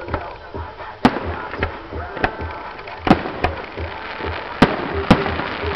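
Aerial fireworks going off in five sharp bangs: one about a second in, two close together around three seconds, and two more near the end. A steady low beat runs underneath.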